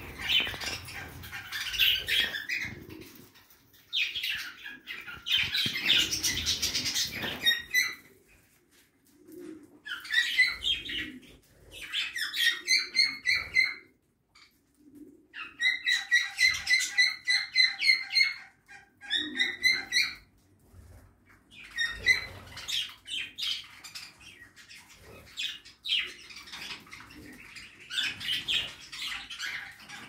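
A flock of budgerigars chattering and chirping, in bouts with runs of fast repeated chirps and short pauses between them.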